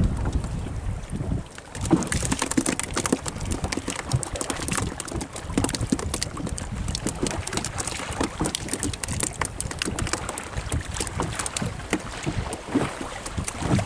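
Wind buffeting the microphone in a small boat on choppy sea, with a low rumble at first, then water slapping and splashing against the hull in quick irregular crackles.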